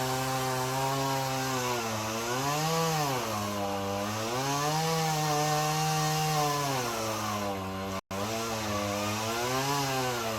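Chainsaw engine running at high revs while cutting into a tree trunk, its pitch repeatedly sagging and recovering as the chain bogs down in the wood.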